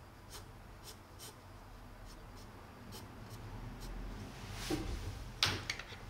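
Pencil scratching on drawing paper in a run of short shading strokes, roughly two a second, a little louder after about four seconds in.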